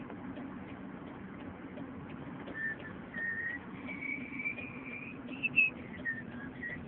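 Whistling: a short run of clear held notes stepping up and down in pitch, starting a little under halfway in. Under it runs a steady low hum with faint regular ticking.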